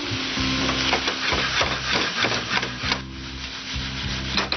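A spatula stirring and scraping spiced lobster pieces around a frying pan: a quick run of scrapes and taps against the pan that eases off about three seconds in.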